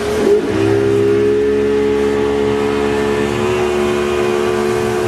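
Mullet boat's engine running under way, steady and loud. Its pitch wavers briefly just after the start, then holds even.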